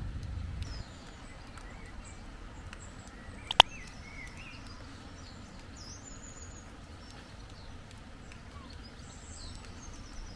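Birds chirping in short scattered calls over a steady low outdoor background, with a low rumble that drops away under a second in. A single sharp click about three and a half seconds in is the loudest sound.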